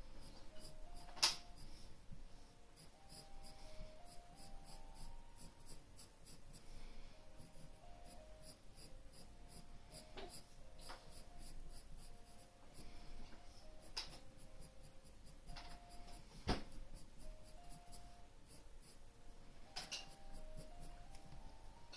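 Graphite pencil scratching on paper in many short, quick shading strokes. Two sharper clicks stand out, about a second in and about three quarters through. A faint tune of single stepping notes plays underneath.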